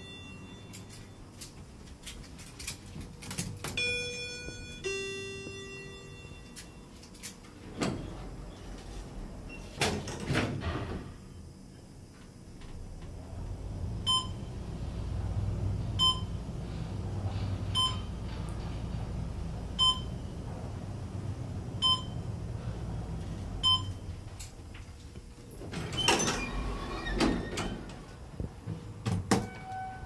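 Schindler 500A traction elevator: chime tones at the start and the doors sliding shut. Then a low hum as the car descends, with a short beep at each floor passed, about every two seconds, six times. Near the end the doors slide open.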